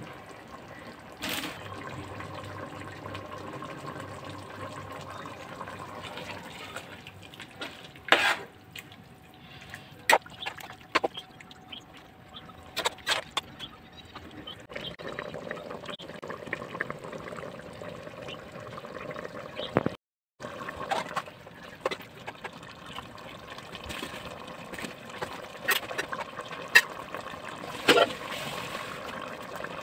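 A metal spoon stirring chicken pieces in a steel cooking pot: wet sloshing and squelching, with scattered sharp knocks of the spoon against the pot, over a steady faint hum.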